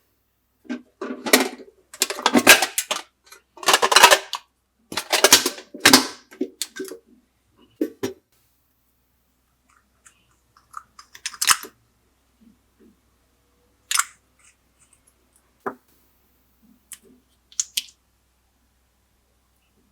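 Glossy slime being squished and worked by hand, giving bursts of wet crackling and clicking for the first eight seconds or so. After that come a few separate sticky clicks.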